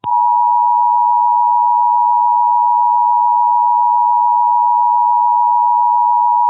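Emergency Alert System attention signal: two steady tones sounded together just under 1 kHz, held without a break. It announces that an emergency alert message is about to be read.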